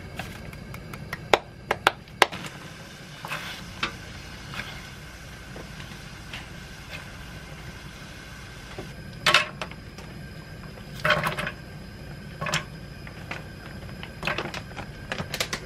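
Kitchen cooking sounds at a gas stove: bean sprouts are being blanched, then frozen mixed seafood is tipped from its plastic bag into a pot of hot water. There are several sharp clicks and knocks in the first couple of seconds, then short rustling, clattering bursts over a steady low hum.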